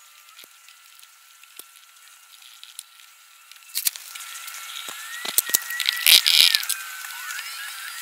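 Scattered clicks, knocks and rattles of hand tools and metal CNC parts being handled and fitted, getting busier and louder from about halfway through, with the loudest rattling bursts just past the middle. A faint steady high tone runs underneath.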